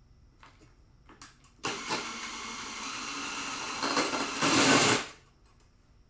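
Electric drill running under load, boring a hole. It starts about a second and a half in, runs steadily for about three and a half seconds, gets louder near the end and stops abruptly.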